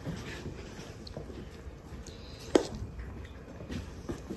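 Cats eating from feeding dishes, a faint low clatter, with one sharp click about two and a half seconds in.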